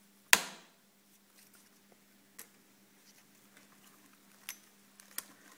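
Clicks and light taps of hands threading film through a 1950s Marin film projector's sprockets and guides: one sharp click about a third of a second in, then a few faint ones. A faint steady hum underneath.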